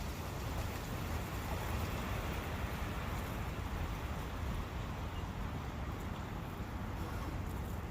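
Brook water flowing steadily through a forest, a continuous babbling rush with no change in level.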